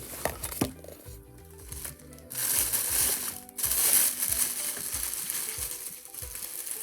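Packaging wrap crinkling and rustling as items are unwrapped by hand, loudest from about two seconds in, with a brief break partway through. Background music plays underneath.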